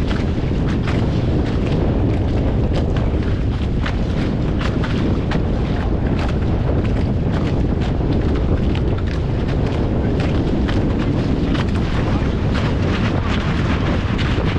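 Heavy wind rumble on the microphone over rushing water, sailing a Hobie FOX catamaran, with short sharp ticks scattered throughout.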